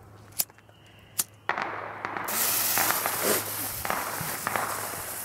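A disposable lighter clicks twice, then a small ground fountain firework's fuse catches and it sprays sparks with a loud steady hiss and crackle that swells about two seconds in.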